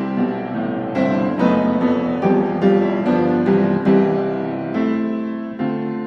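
Background piano music, notes struck one after another in a steady flow.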